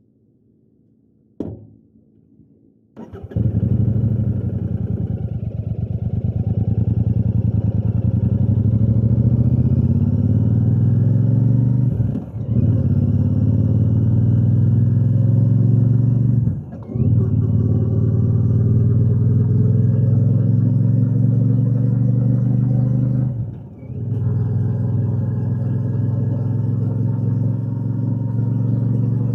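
Royal Enfield Shotgun 650's parallel-twin engine and exhaust under way, coming in loud about three seconds in after near silence and a single click. The pitch climbs as it accelerates through the gears, with three short dips where the rider shifts up.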